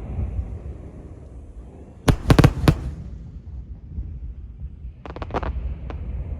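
Fireworks going off in quick crackling clusters: a rapid run of sharp bangs about two seconds in and another shorter run about five seconds in, over a steady low rumble.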